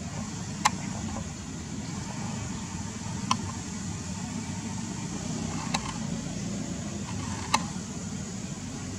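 Steady low background rumble with a faint hiss, broken by four short, sharp clicks about two seconds apart.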